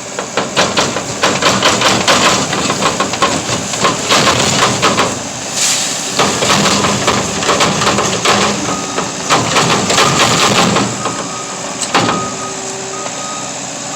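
Loose stone and gravel clattering as it pours out of a Case skid steer's broom-and-bucket attachment during a dump, a dense rattle of small impacts with a brief lull partway through, over the skid steer's running engine. A single sharp knock near the end.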